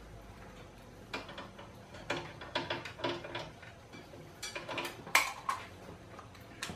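Clicking and light clatter of multimeter test leads and their clips being unhooked from a riding mower's battery terminals and gathered up. The loudest knock comes about five seconds in.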